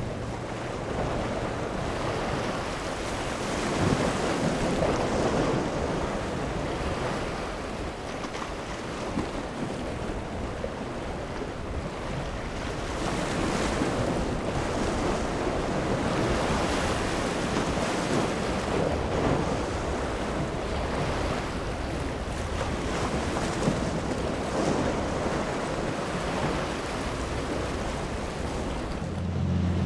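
Rushing, splashing water from a motor yacht's hull and wake cutting through choppy inlet waves, with wind noise on the microphone; the sound swells and eases as the waves break.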